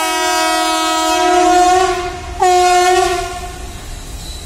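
Air horn of an Indian Railways WAG-5 electric locomotive heading a goods train, sounded in two blasts of one steady note. The first is already sounding at the start and holds about two seconds. The second is about a second and a half long. Each sags slightly in pitch as it trails off.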